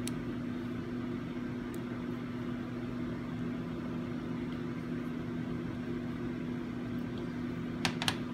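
Steady low electrical hum with a few level tones. Two or three small sharp clicks come near the end, as the small plastic parts of the opened dashcam are handled.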